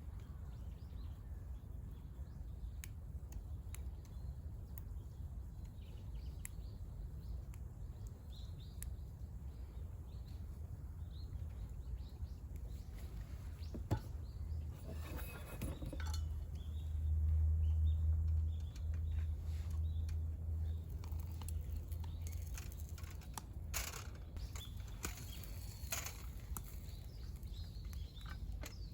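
Outdoor ambience of small birds chirping over a steady low rumble, with scattered light clicks and taps. The low rumble swells for several seconds in the middle, and a single sharper click comes just before it.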